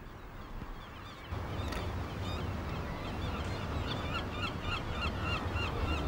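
A flock of birds calling, many short calls overlapping quickly, over a steady low rumble that comes in about a second in.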